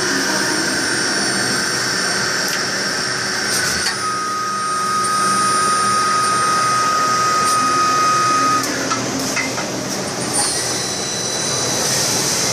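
Swiss-type CNC lathe machining brass parts, running with steady high-pitched whines over a mechanical hum. A stronger single-pitched whine starts about four seconds in and cuts off after about four and a half seconds, and a few sharp clicks come from the machine's moving parts.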